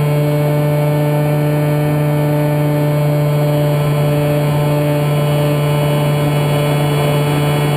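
Brushless electric motor (Scorpion 4020-10) and APC 11x10 propeller of a Kyosho Spitfire 50 EP model plane at steady throttle: a loud, unchanging hum, heard from a camera riding in the plane's cockpit.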